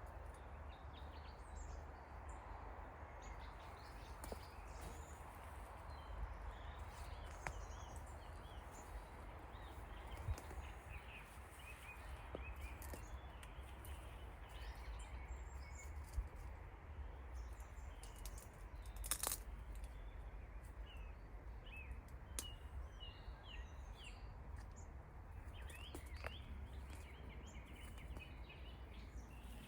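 Small birds chirping on and off over a steady low rumble, with a few sharp clicks.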